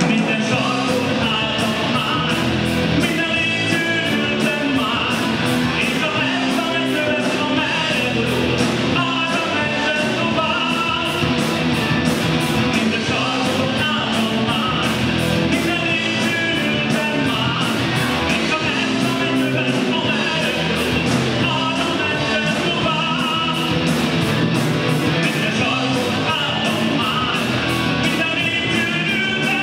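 Live rock band playing a song: a male singer over electric guitars, keyboard and drums, with a steady cymbal beat.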